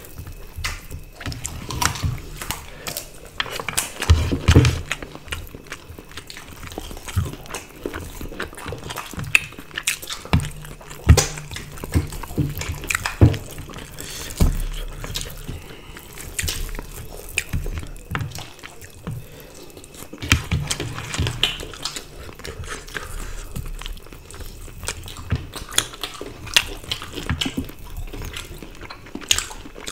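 Close-miked eating sounds: chewing, lip smacks and wet squishes as rice and curry are mixed and eaten by hand, in irregular clicks and smacks over a low steady hum.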